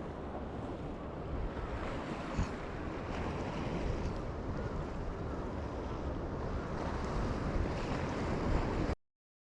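Wind buffeting the microphone over the sound of sea waves, a steady rough noise that cuts off abruptly about nine seconds in.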